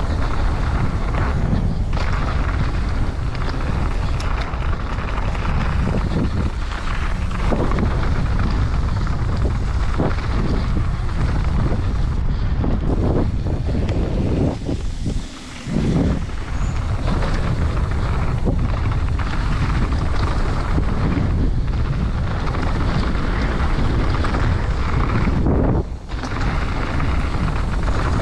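Wind rushing over the microphone with the rumble and rattle of a mountain bike ridden fast down a rough dirt trail, with many small knocks from bumps. The noise drops away briefly twice, about halfway through and near the end.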